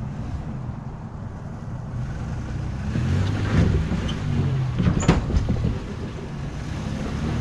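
Off-road truck engine running under varying throttle, its note getting louder and shifting in pitch around the middle, with a few sharp knocks and clunks.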